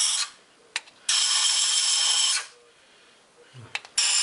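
Compressed-air blow gun blasting dirt out of the cylinder-head bolt holes of an engine block, in short bursts of loud hiss. One burst ends just after the start, one lasts about a second and a half from about a second in, and another begins near the end. Short clicks come in the gaps between bursts.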